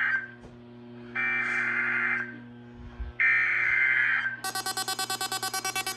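Three screeching digital data bursts, about a second each, of the SAME (Specific Area Message Encoding) header that opens an Emergency Alert System required weekly test on NOAA Weather Radio. Near the end a rapid pulsing electronic buzz starts, about eight pulses a second.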